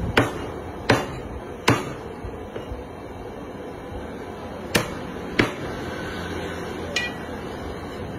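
A steel cleaver chopping meat on a wooden chopping block: three sharp chops about a second apart, a pause, two more, then a lighter knock with a brief ring near the end.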